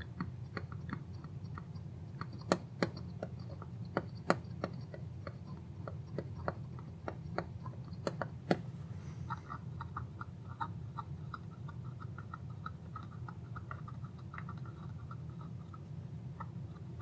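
Small clicks and ticks from fingers turning the trimmer potentiometers on a small circuit board and handling its wires. The clicks are scattered, with a few sharper ones in the first half, then give way to a quicker run of faint ticks in the second half.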